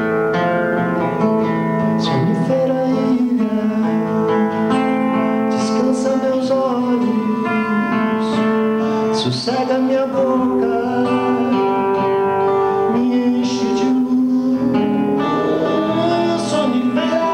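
Acoustic guitar strummed with a harmonica played over it from a neck holder: long held chords that bend in pitch now and then.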